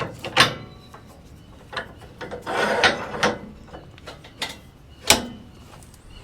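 Sharp clunks and a rough scraping rub of wood on metal as a utility pole is shifted and clamped on a bandsaw sawmill's bed. The loudest knocks come about half a second in and about five seconds in, with a second or so of scraping between them.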